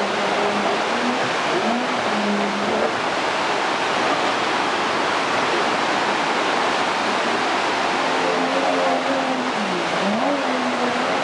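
Steady rush of a whitewater rapid, with the Yamaha 50 jet outboard of an inflatable boat heard beneath it, its pitch rising and falling as the throttle changes, clearest near the start and again near the end.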